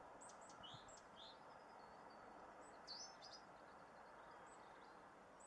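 Faint garden-bird chirps: a scattering of short, high calls, the clearest a quick pair about three seconds in, over a low outdoor background.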